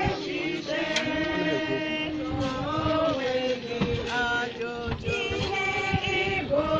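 Voices chanting in long held notes that step from pitch to pitch.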